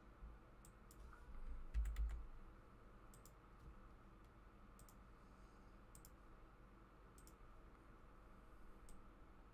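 Computer mouse clicks and keyboard keystrokes, scattered and faint against room tone, with a cluster of clicks and a short low thump about two seconds in.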